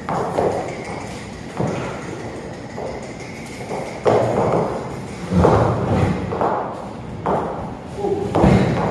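A stallion's hooves and body thudding on the matted floor and against a breeding phantom, in irregular heavy thuds with an echo; the horse mounts the phantom near the end.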